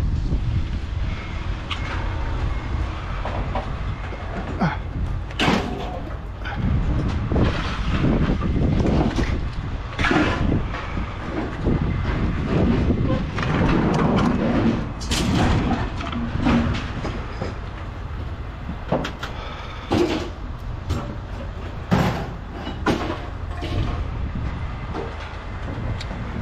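A steady low engine rumble with irregular metallic clanks and knocks scattered throughout.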